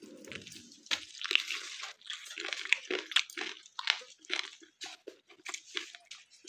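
A person biting into a fried chicken leg piece and chewing it close to the microphone: an irregular run of short, sharp mouth sounds, a few a second.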